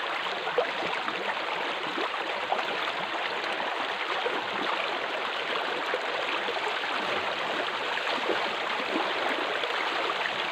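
Fast water rushing steadily down a narrow concrete aqueduct channel, with a few faint splashes from someone wading through it.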